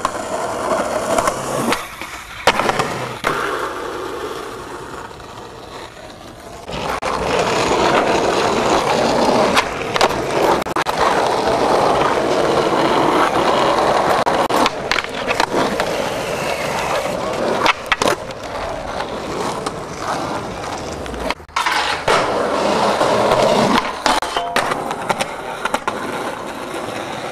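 Skateboard wheels rolling hard over concrete, broken by several sharp clacks of the board striking the ground.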